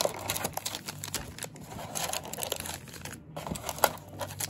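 Foil wrappers of Kayou Naruto booster packs crinkling as a stack of packs is lifted from the box and handled, with many small crackles.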